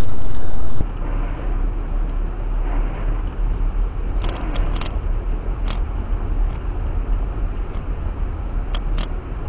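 Car driving: a steady low engine and road rumble with a few short, sharp clicks around four to five seconds in and again near the end. A louder, fuller sound cuts off abruptly under a second in.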